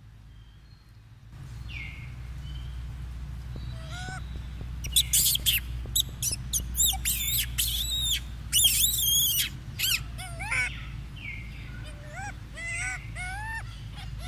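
Baby macaque screaming, with a run of loud, high-pitched rising-and-falling shrieks from about five to nine and a half seconds in, then shorter arched squeaks until the end. A low steady rumble sits underneath throughout.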